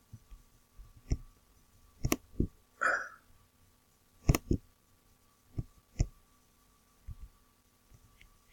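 Computer mouse clicks, about nine sharp clicks mostly in close pairs, over a faint steady electrical hum, with a brief mouth sound about three seconds in.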